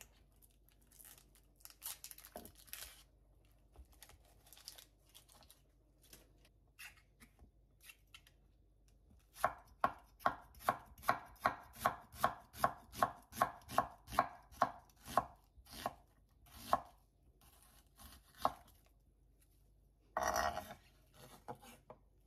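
Kitchen knife slicing an onion thinly on a wooden cutting board: a quiet patch of small clicks and trims, then a steady run of sharp knife strokes on the board, about two to three a second, with a few single strokes after and a short scrape near the end.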